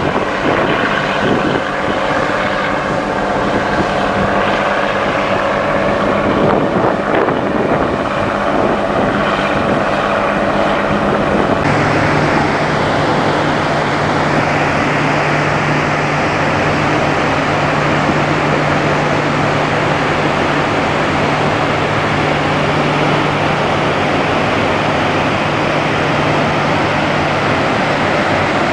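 Steady wind noise on the microphone over the continuous hum of a container ship's machinery. The sound changes abruptly about twelve seconds in, with a steadier, deeper hum afterwards.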